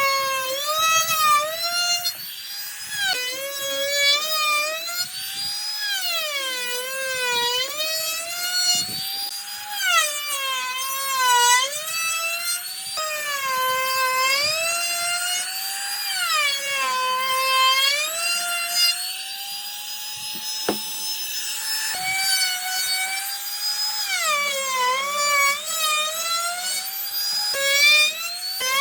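High-speed woodworking power tool motor whining, its pitch repeatedly sagging and climbing back every couple of seconds, with a few abrupt breaks.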